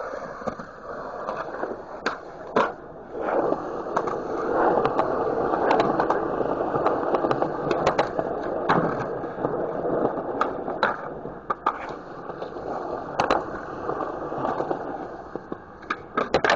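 Skateboard rolling on concrete, with a steady rumbling roll and scattered sharp clacks of the board popping and landing. The trucks grind along concrete ledges.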